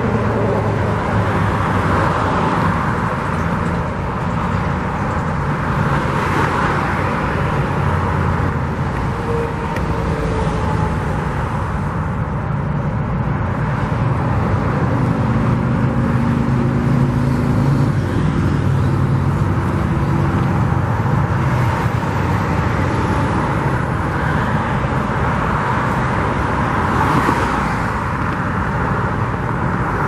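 Steady road traffic, with several vehicles passing one after another.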